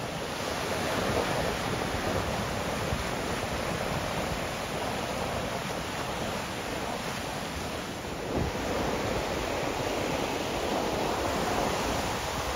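Ocean surf washing against rocks and onto the sand, a steady rush of breaking waves, with some wind rumbling on the microphone.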